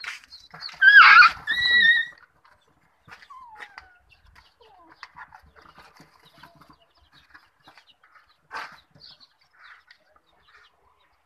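Chicks peeping faintly from a brooder, with a loud animal cry in two parts about a second in, and a single short clack at about eight and a half seconds.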